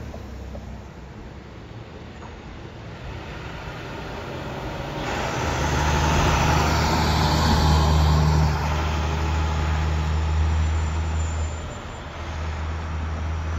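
IC CE school bus engine heard from inside the cab, a low, steady drone that swells loud along with road noise about five seconds in and eases back about twelve seconds in.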